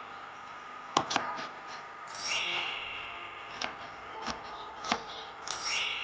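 Kitchen food preparation: scattered sharp knocks of utensils on a hard surface, with two brief scraping swishes in between.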